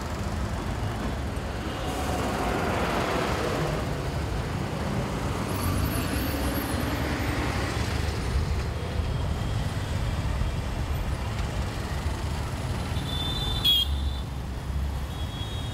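Dense city road traffic passing in a steady low rumble from the engines of auto rickshaws, buses, motorcycles and cars, with single vehicles swelling past. A horn gives a short blast near the end, then a held horn note follows.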